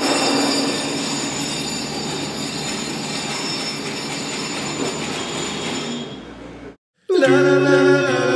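Jackhammer at road work, a dense, rapid, steady clatter that fades out about six seconds in. After a brief silence, music starts near the end.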